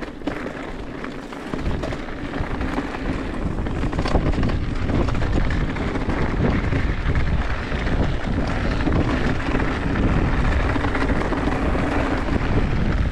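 Wind buffeting the microphone over the noise of a mountain bike rolling downhill, tyres and frame rattling with many small knocks; it gets louder about a second and a half in as speed builds.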